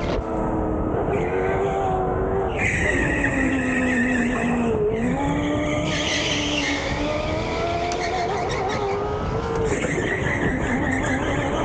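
Biz electric go-kart's motor whining, its pitch rising and falling with speed through the corners. A higher tyre squeal joins from about three to six seconds in.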